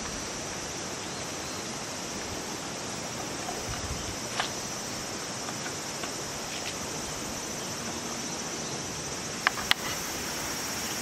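Steady insect chorus trilling over an even background hiss, with a few faint ticks and two sharp clicks close together near the end.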